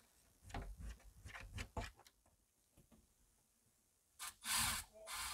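Handling noises at a window frame while a plexiglass pane is fitted: a run of light clicks and knocks, then a short harsh, noisy burst near the end.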